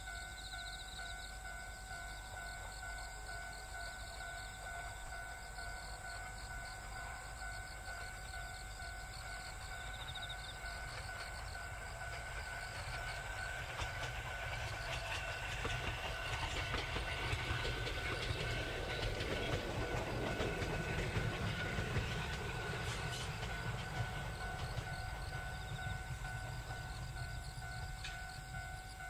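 Ueda Kotsu electric train running past on the line, wheels clicking over the rail joints; its rumble swells through the middle and fades toward the end.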